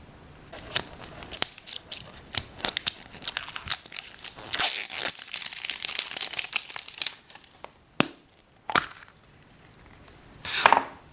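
Plastic toy packaging being crinkled and torn open by hand: a dense run of crackles and rips for about six seconds. Then a couple of sharp clicks and a short rustle near the end.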